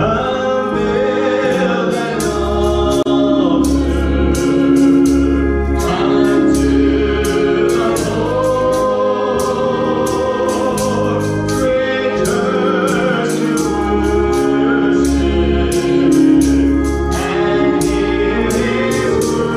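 A man singing a gospel song solo into a microphone over sustained organ accompaniment, with held notes and a light ticking beat underneath.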